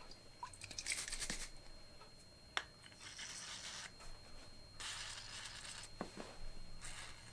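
A WD-40 aerosol can spraying through its straw in several short hissing bursts of about a second each, with a sharp click between the first two.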